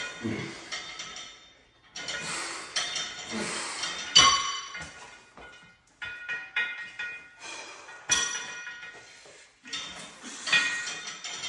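Ringing metallic clinks from the cable machine's steel parts (pulley carriage, handle clip and weight stack) as it is handled. They come about every two seconds, each one ringing on briefly, the loudest about four seconds in.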